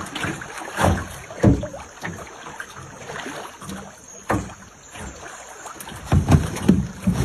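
Wind buffeting the microphone in uneven low rumbles, with irregular thumps and knocks.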